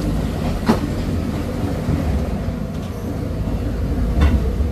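Heavy vehicle engine running with a steady low rumble, with two sharp knocks, one about a second in and one near the end.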